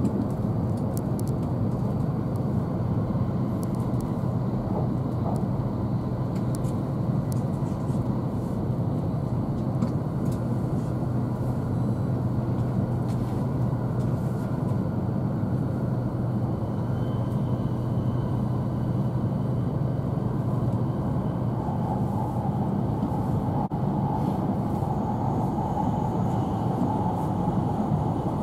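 Tohoku Shinkansen train running steadily, heard inside the passenger cabin: an even, unbroken low rumble of wheels and running gear, with a faint higher whine coming in during the last few seconds.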